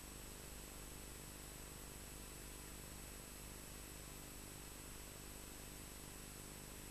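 Faint steady hiss with a low hum underneath, unchanging throughout: the noise floor of the soundtrack.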